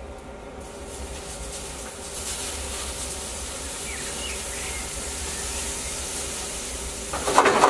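Fennel and cucumber vegetables sizzling in a grill basket over a gas grill's sizzle burner, a steady hiss that grows louder about two seconds in. Near the end there is a much louder burst of sound.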